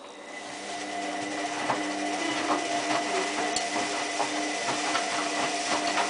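Hotpoint Aquarius+ WMF740 washing machine in its cottons 30 main wash: the drum motor starts and runs with a steady whine that grows louder over the first second, while the load tumbles in the drum with irregular soft knocks.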